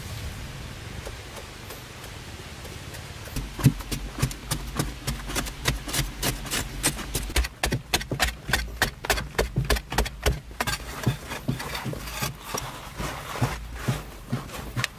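A short-handled digging tool chopping and scraping into packed earth in quick repeated strokes, about three a second, starting a few seconds in.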